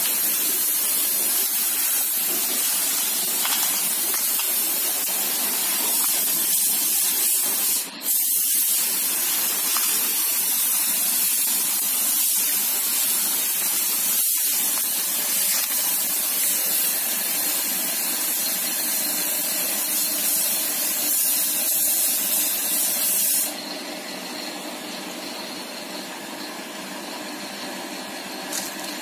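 Air-powered gravity-feed paint spray gun hissing steadily as it sprays paint onto a car body, with a brief break about eight seconds in. The spraying stops about five seconds before the end, and a quieter steady sound is left.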